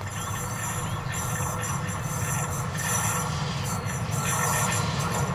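ÖBB class 1020 electric locomotive and its passenger train approaching: a steady rumble of locomotive and wheels on the rails growing gradually louder, with a thin high squeal above it.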